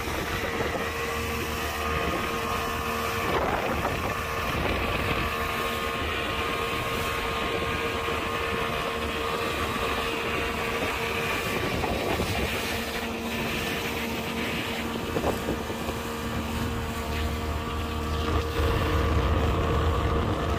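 Fishing boat's motor running steadily at speed, a constant engine drone under water rushing past the hull, with wind buffeting the microphone; it grows a little louder near the end.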